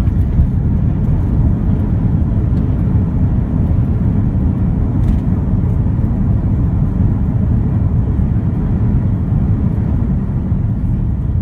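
Airliner cabin noise after landing: a loud, steady low rumble of the engines and the aircraft moving on the ground.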